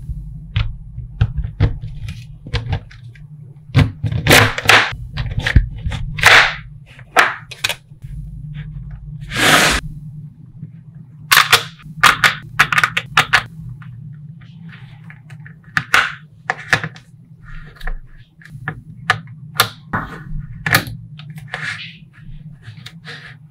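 Small magnetic balls clicking and clacking as they snap together and are set down on a hard tabletop. The sharp clicks come irregularly, some in quick clusters, with a few longer clattering bursts, the longest just before ten seconds in.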